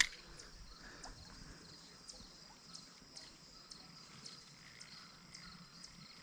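Faint outdoor ambience after a sharp click at the very start: a steady high-pitched insect drone with soft, regular ticks about twice a second.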